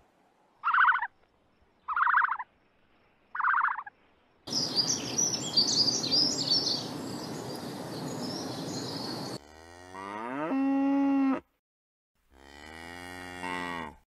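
A string of different animal calls. First come four short repeated calls, then several seconds of noisy chirping, then two long calls that bend in pitch.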